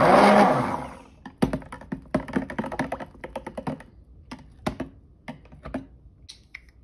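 A stick blender runs for about a second in a glass measuring cup of cold-process soap batter, mixing it just to emulsion. Then it stops, and its metal head clicks and knocks against the glass in a quick, irregular series as the batter is stirred by hand.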